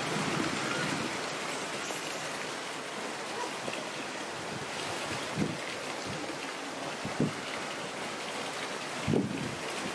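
Steady rush of running water, with three short low thumps in the second half.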